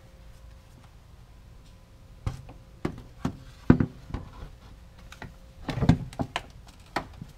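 Hollow plastic knocks and rubbing as the Honda Civic's plastic intake resonator box is worked back into place in the engine bay: a few separate knocks begin about two seconds in, then a denser clatter near the end.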